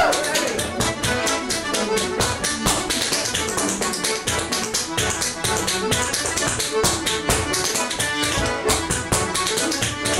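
Button accordion playing a lively traditional Irish tune, with a sean-nós dancer's shoes beating out rapid steps on a stone-flagged floor.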